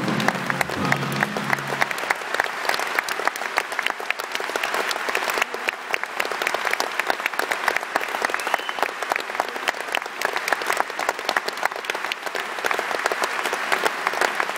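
Concert audience applauding: dense, steady clapping, with the band's final notes fading out during the first two seconds.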